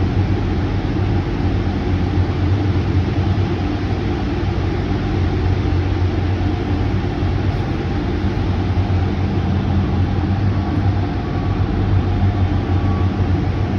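Steady low engine rumble with an even wash of noise over it, unbroken and without any hammer strikes.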